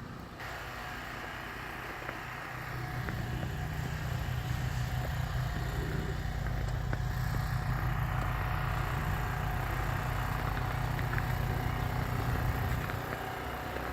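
An engine running steadily, louder from about two and a half seconds in and easing off again near the end.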